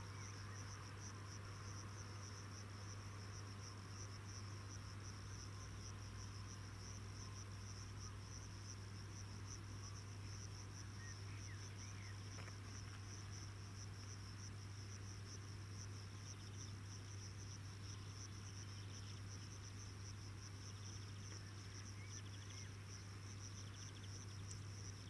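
Crickets singing, a faint continuous high pulsing trill, over a steady low hum.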